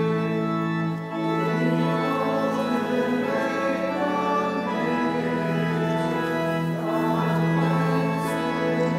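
Church organ playing slow processional music: held chords that change every couple of seconds.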